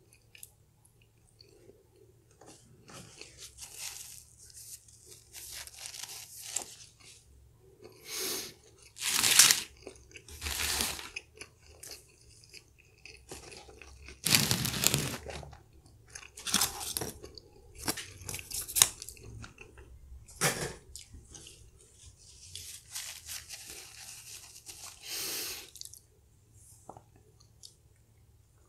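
Close-miked chewing and crunching of crispy food in irregular bursts, the loudest crunches about nine and fourteen seconds in.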